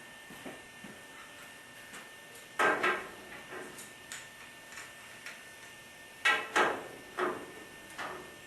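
Tools knocking against gas pipe and fittings during gas line work: two loud double knocks a few seconds apart, with lighter single knocks between and after.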